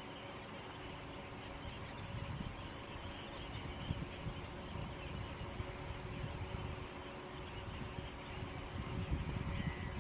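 Open-air ambience dominated by wind buffeting the microphone in uneven low rumbles, over a faint steady hum and hiss.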